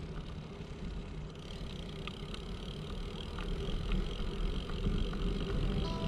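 Cycling on a paved path: a steady low rumble of wind on the microphone and tyres rolling, with a faint high steady tone coming in about a second and a half in.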